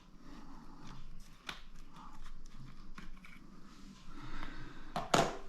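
Small clicks and light handling noise as laptop RAM modules are worked loose and handled by hand, with one sharper click near the end.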